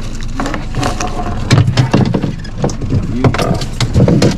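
Irregular knocks and thumps of feet and gear against a boat's deck and hull, over a steady low rumble.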